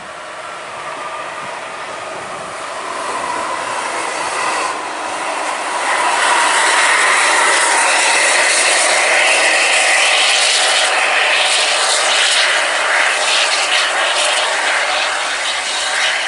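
Coach bus driving past on the highway, its engine and tyre noise a steady hiss. The noise grows louder about six seconds in and stays loud.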